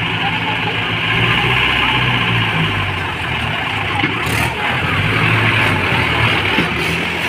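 Mahindra 575 DI tractor's diesel engine running hard under heavy load, its rear wheels digging into loose soil. Its pitch wavers, and it gets louder from about a second in.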